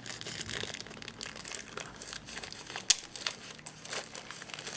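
Packaging for a smartphone box, its plastic wrapping and inner packing, crinkling and rustling as it is handled, in an irregular run of small crackles. A single sharp click comes about three seconds in.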